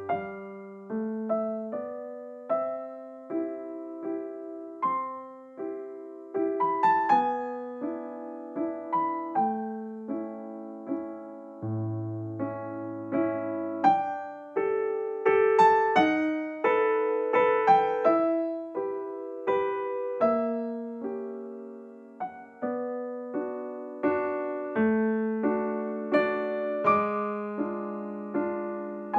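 Solo piano music: slow single notes and chords, each note struck and fading, as a background soundtrack.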